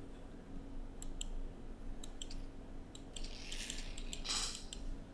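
Computer mouse clicking, several times in quick pairs, over a faint steady hum, with two brief hisses in the second half.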